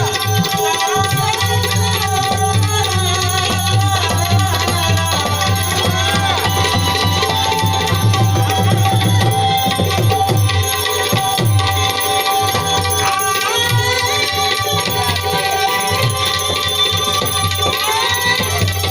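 Indian folk music: a tabla-style drum beat under a continuous melody line with held notes and curving pitch glides.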